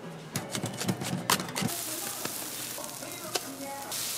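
A few short clicks and knocks, then a block of margarine sizzling as it melts on a hot griddle, a steady hiss from about two seconds in.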